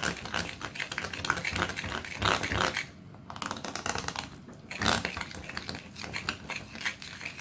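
Spoon stirring a thick batter of crushed chocolate sandwich cookies and milk in a glass bowl: rapid clicking and scraping against the glass, with a short pause about three seconds in.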